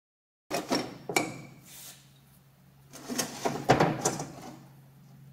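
Cast-iron tailstock casting of a Monarch 10EE lathe being slid off its base and lifted away, metal clunking and scraping: a couple of knocks about a second in, then a cluster of louder clunks near the end.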